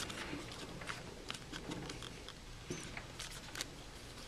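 Faint, irregular small clicks and light scraping of the aluminum manifold being wiggled by hand against the body of a Wilden air-operated double-diaphragm pump, working its Teflon D-ring seals into their grooves.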